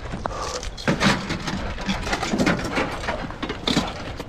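Irregular footsteps and scuffs on a wet, grit-strewn asphalt road, with knocks and clatter of military gear being handled in a pickup truck bed near the end.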